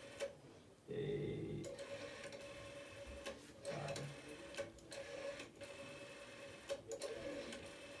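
Rotary telephone dial being wound round by finger and let go, its mechanism clicking as it spins back, several times over. A faint steady tone runs under it from about a second and a half in.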